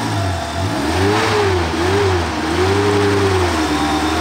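Off-road 4x4's engine revving up and down, its pitch rising and falling about four times.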